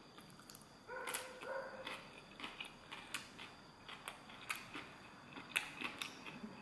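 Close chewing of crunchy salad, with many small sharp clicks of mouth and teeth and light taps of a plastic fork on a foam food box. About a second in there is a short two-part sound held at a steady pitch.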